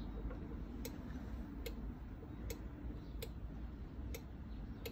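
Even mechanical ticking, one sharp tick about every 0.8 s, over a faint low hum.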